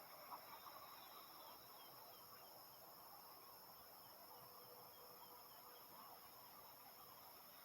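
Faint evening countryside ambience: a steady high-pitched insect trill with scattered faint bird chirps.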